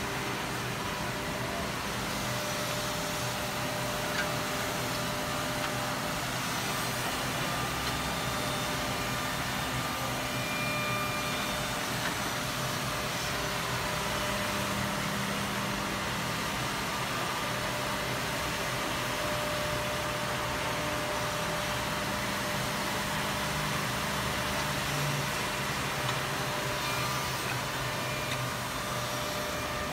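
Woodmaster CNC double-end oval tenoning machine running: motors and spinning brush-sanding heads make a steady whirring noise with several steady hums underneath.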